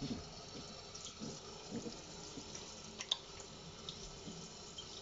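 Water running from a kitchen faucet into a stainless steel sink, faint and steady, as a wet puppy is rinsed. A couple of short clicks come about three seconds in.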